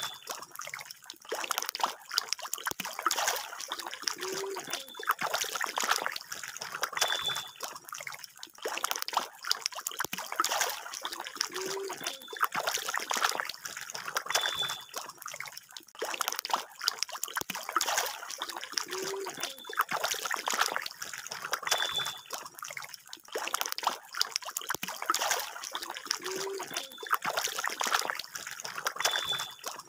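Water splashing and trickling steadily, with many small splashes. Among them a short high chirp and a faint low blip recur, and the whole pattern repeats about every seven and a half seconds.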